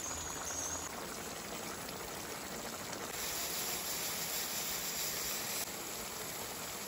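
Fish curry simmering in a non-stick pan, a steady watery bubbling.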